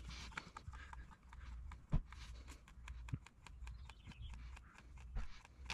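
Hand pump on a gear lube bottle being worked, pushing fresh gear lube into the outboard's lower unit: faint, rapid clicking with a few louder knocks.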